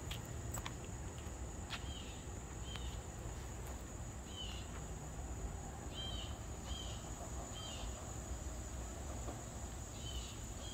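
Late-summer outdoor ambience: a steady, high-pitched insect drone with short bird chirps repeated every second or so, over a faint low rumble. A few sharp clicks sound in the first three seconds.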